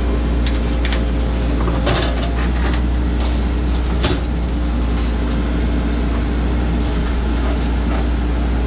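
CAT 432E backhoe loader's diesel engine running steadily under load, heard from inside the cab while the backhoe digs. A couple of short knocks come about two and four seconds in.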